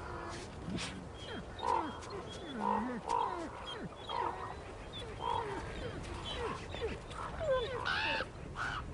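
Wolves in a dominance encounter: an alpha female forces submission from a daughter, with growls and a string of short whines and yelps about once a second. A louder, higher cry comes near the end.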